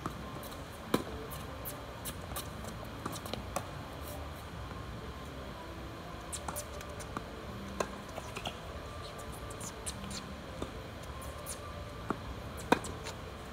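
Tennis balls struck by rackets and bouncing on a hard court during a doubles rally: a sharp pop about a second in and another near the end, with scattered lighter taps between, over a steady background hiss.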